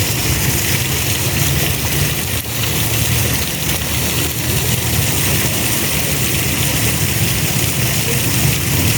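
Steady rush of falling, splashing water, with a low, steady engine-like hum beneath it.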